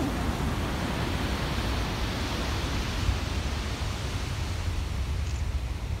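Steady, even noise of ocean surf on the beach, with wind buffeting the microphone.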